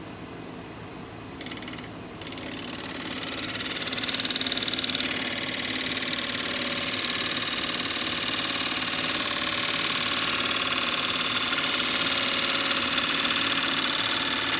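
Wood lathe running with a steady hum while a bowl gouge cuts into a spinning natural-edge pear bowl. After a couple of light ticks, the cutting noise builds up from about two seconds in and holds steady and loud. It is a re-turning cut to take out an uneven spot in the bowl before finishing.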